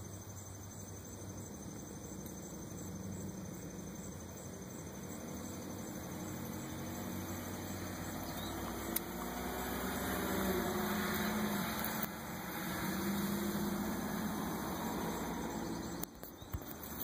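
Low hum of a distant motor over steady outdoor background noise, swelling about nine seconds in and easing near the end, with a few small clicks.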